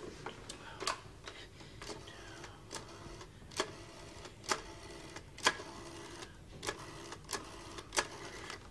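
A telephone being handled and dialled: sharp clicks at uneven intervals, roughly one a second.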